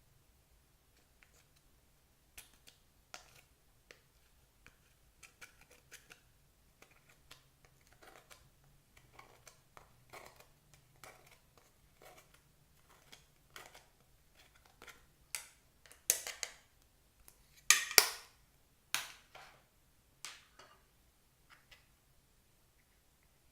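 Clear slime being pressed and stretched by hand, making irregular sticky clicks, crackles and pops. These grow louder in the second half, with a few sharp loud snaps about three-quarters of the way through.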